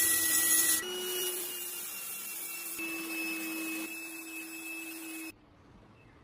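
A small electric power tool running steadily with a whine and a hissing, scratching noise, as when wire-brushing or sanding rusty metal, in several short cut-together stretches. It stops abruptly about five seconds in, leaving only faint background.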